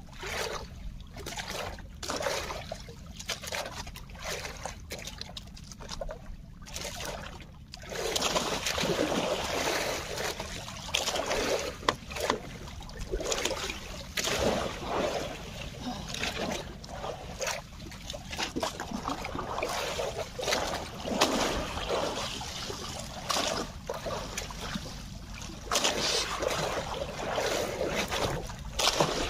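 Sea water splashing and trickling around a small boat, in irregular surges, louder and busier from about eight seconds in.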